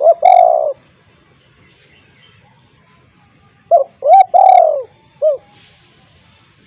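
Spotted dove (tekukur) cooing loudly in two phrases about four seconds apart, each a few short arched coos running into a longer rolling coo, the second phrase ending with one more short coo.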